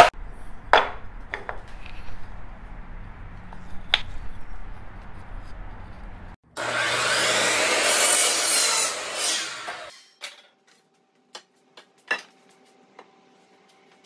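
Wood blocks knocked and shifted at a miter saw, then the power miter saw cutting through the handrail for about three and a half seconds, followed by a few light clicks.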